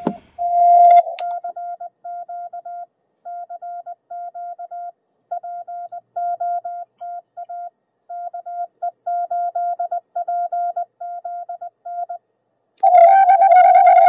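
Morse code sidetone from a Yaesu FTDX10 transceiver: a steady mid-pitched beep keyed on and off in dits and dahs as an SP4 paddle key is worked, with short pauses between characters and words. Near the end a louder, fuller sustained tone with several overtones takes over.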